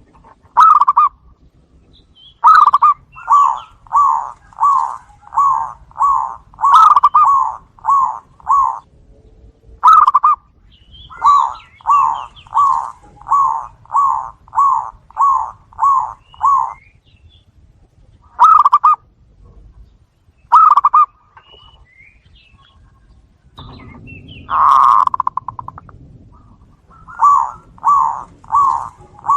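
Zebra dove (perkutut) calling: runs of short, clipped coos, about three every two seconds, stopping and starting again several times. Faint high chirps sound above the coos.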